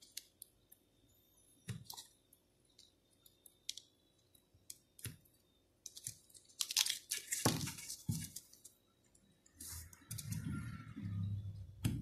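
Scattered small clicks and rustles of jumper wires being handled and pushed into a plastic breadboard, busiest about six to eight seconds in, with a muffled lower rustle near the end.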